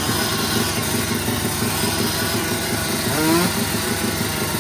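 350cc drag-racing motorcycle engine held at high revs during a burnout at the start line, with one quick rise in revs about three seconds in.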